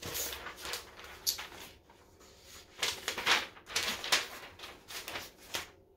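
Paper sheets and clear plastic packaging rustling as they are handled and shuffled, in several short bursts of crinkling with brief pauses between.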